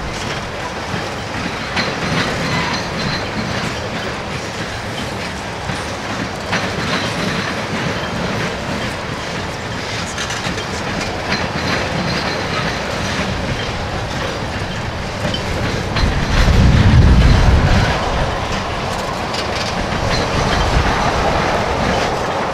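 Freight train tank cars rolling past, their wheels clicking over the rail joints. A loud low rumble swells for about two seconds roughly two-thirds of the way through.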